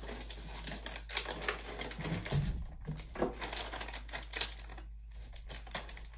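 Irregular crinkling and crackling of a plastic treat pouch being handled, with rummaging clicks, and a few soft thumps about two to three seconds in.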